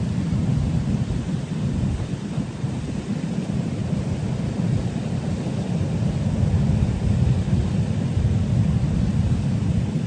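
Wind buffeting the microphone outdoors: a steady low rumble with no clear pitch.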